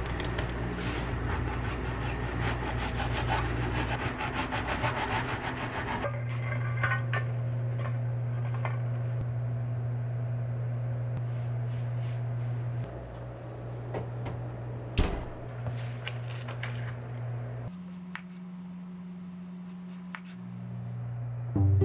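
Scattered rubbing and scraping with light knocks, over a steady low hum that changes abruptly several times.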